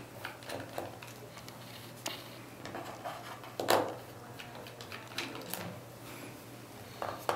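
Faint, scattered clicks and taps of a screwdriver and hands working the screws out of the plastic case of an Aqua-Vu Micro Plus monitor, the loudest tap about halfway through, over a steady low hum.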